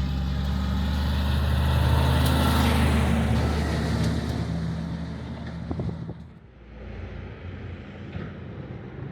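Heavy diesel truck engine running close by, loudest a couple of seconds in, with a few sharp knocks, then dropping away after about six seconds to a quieter engine hum.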